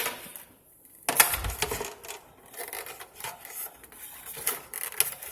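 Clicks and rattles of a small snap-in plastic cover being handled, with a dull knock about a second and a half in.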